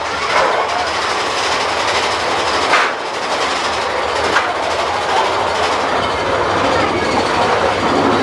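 Mine-train roller coaster cars running along the track, a steady loud rumble and rattle with a couple of sharp clacks.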